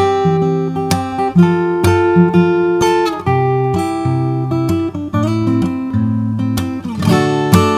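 Background music on acoustic guitar: a run of plucked notes and strummed chords.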